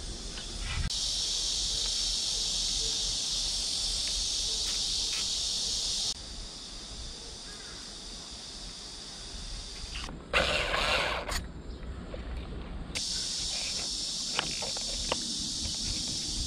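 Cicadas buzzing in a steady high drone that cuts in and out, over small clicks and rustles of gloved hands handling motorcycle wiring. About ten seconds in there is a loud rustling burst lasting about a second.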